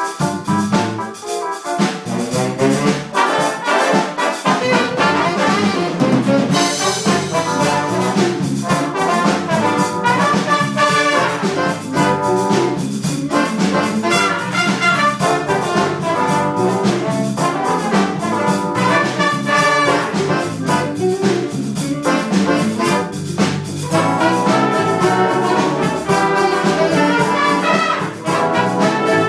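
Jazz big band playing live, its trumpet, trombone and saxophone sections sounding together over a steady beat.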